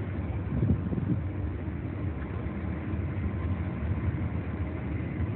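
Steady low rumble of a CN freight train rolling past, with a few heavier knocks about a second in.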